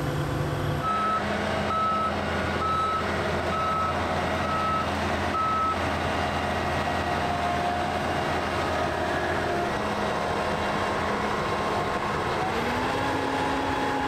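A John Deere combine's backup alarm beeping six times, about once a second, over a steadily running engine. Near the end the engine's pitch rises as it speeds up.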